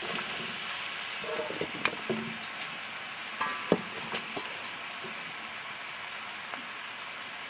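Hot oil sizzling in a pot as chopped eggplant and eddo pieces are tipped in, with a handful of knocks and clatters as the pieces land between about one and four and a half seconds in. The sizzling then settles a little lower.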